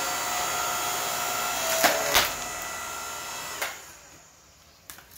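Electric log splitter's motor and hydraulic pump running with a steady whine, with a couple of knocks about two seconds in. It is switched off a little before four seconds in and winds down.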